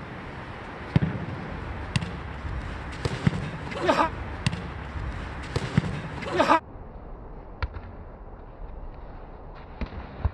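A jokgu ball being kicked and bouncing on the court: sharp thuds a second or two apart, with a couple of short shouts from the players around the middle.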